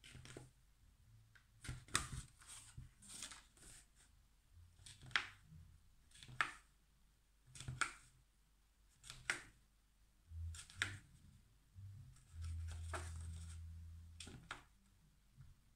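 Needle pricking sewing holes through folded paper along the crease, with the paper rustling: short crisp crackles, one about every second or so. A low hum comes in for about two seconds near the end.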